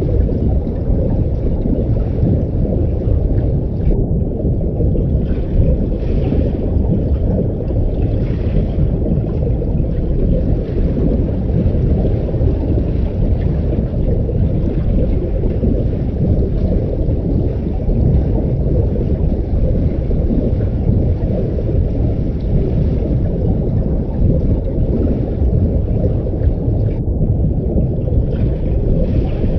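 Underwater ambience sound effect: a steady, muffled low rumble of water as heard while submerged, with a faint hiss above it. The hiss briefly cuts out about four seconds in and again near the end.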